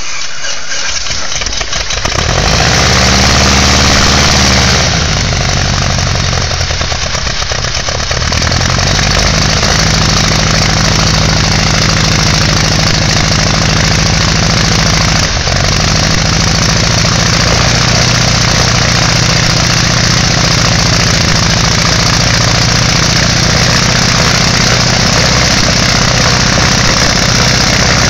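Freshly overhauled Lycoming O-290 four-cylinder air-cooled aircraft engine on a propeller test stand, starting up on its first run after overhaul. It catches right away, rises and falls in speed over the first few seconds with an uneven patch, then settles into a steady run.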